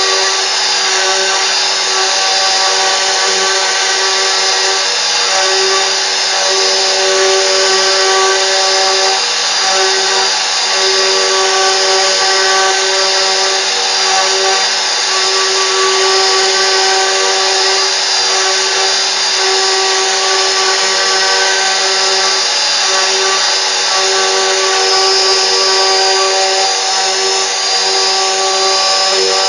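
CNC router running: a steady spindle whine made of several held tones over a hiss, with the lowest tone flickering in and out now and then.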